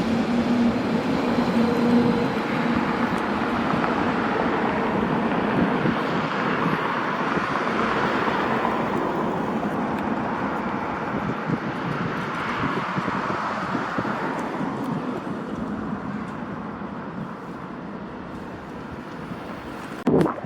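German diesel locomotive rolling through railway points: a low engine drone at first, under steady wheel-on-rail running noise that slowly fades as it passes.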